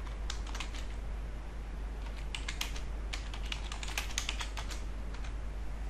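Typing on a computer keyboard: short irregular runs of keystrokes with pauses between them.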